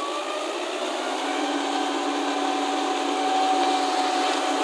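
Farm tractor's diesel engine running hard as it drives its cage wheels through deep mud and water, the pitch rising a little about a second in and then holding steady while it grows louder.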